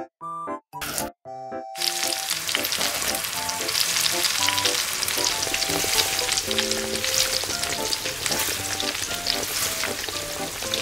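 Flour-and-egg coated chicken thighs deep-frying in a miniature steel wok of hot oil: a steady, dense crackling sizzle that starts about two seconds in.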